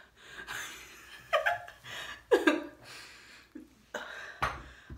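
A woman laughing and chuckling in two short bursts with breaths between.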